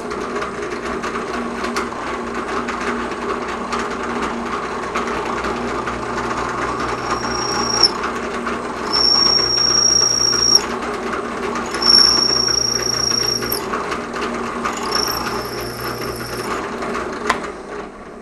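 Drill press running as a twist drill bit is peck-fed into aluminum held in a vise, with four cuts of about a second and a half each, each carrying a high steady squeal from the cutting bit. The bit throws spiral chips, a sign that the speed and feed pressure are right. The motor runs down near the end.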